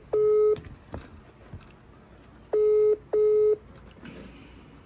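Telephone ringback tone heard through a phone's loudspeaker: a double ring of two short, steady beeps in quick succession, repeating every few seconds. The last beep of one double ring comes at the start, and a full double ring comes about two and a half seconds in. It means the called phone is ringing and has not been answered yet.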